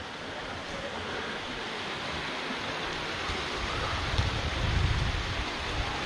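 Steady rushing of water flowing in a stream, with low wind buffeting on the microphone swelling about four to five seconds in.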